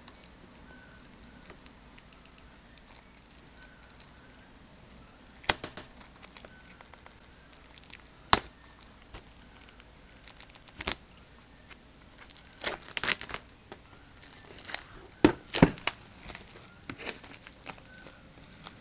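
Plastic shrink-wrap being picked at, torn and crinkled off a cardboard board-game box, with handling of the box. Irregular sharp crackles, a few in the first half and more of them in the second half.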